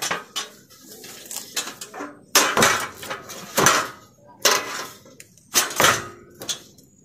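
Painted steel step ladder clanking and rattling as it is set against a corrugated sheet-iron wall and climbed: about eight separate metal knocks spread over several seconds.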